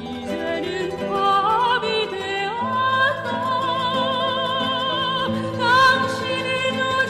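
A classical soprano singing a slow song with wide vibrato over instrumental accompaniment. About a second in the voice rises onto long, held notes.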